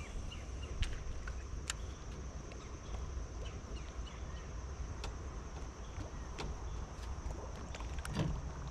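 Boat ambience on the water: a steady low rumble with a faint high hiss and scattered light clicks. A louder thump comes near the end.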